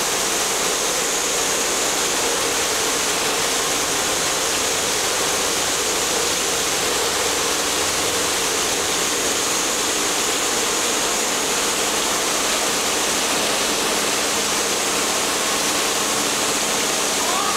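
Plate-and-frame filter press running: a steady rushing, water-like noise, with a faint steady hum from the machinery under it.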